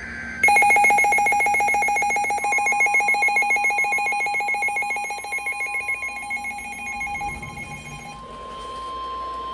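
Emergency alert attention tones. A rapidly pulsing electronic alarm beep starts suddenly and stops near the end. A steady single tone joins it a couple of seconds in and keeps going after the beeping stops. These tones announce an incoming tornado warning.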